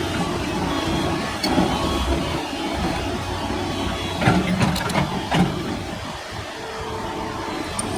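Doosan excavator's diesel engine running steadily, with several sharp knocks and scrapes of rock near the middle.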